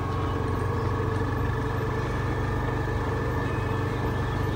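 Motor vehicle engine running at a steady low speed, a continuous even hum.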